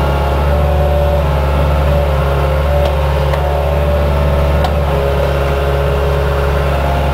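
Small excavator's diesel engine running steadily while it works, with a few faint clicks in the middle.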